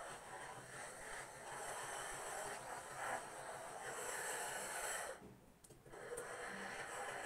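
Garment steamer hissing as its hose-fed nozzle is worked over hanging clothes, the hiss rising and falling unevenly and cutting out briefly about five seconds in.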